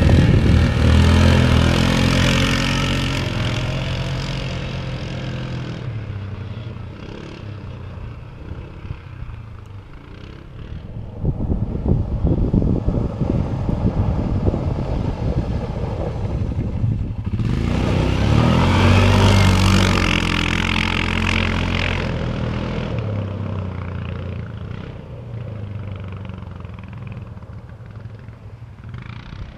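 Racing ATVs passing close by one after another, their engines revving hard and fading away. The loudest passes come at the very start and about two-thirds of the way through, with a smaller one in between.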